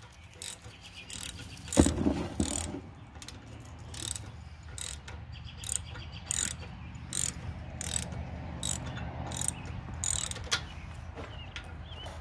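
Hand socket ratchet clicking as its handle is swung back and forth to tighten a bolt, a short burst of pawl clicks roughly every half to three-quarters of a second. A heavier knock comes about two seconds in.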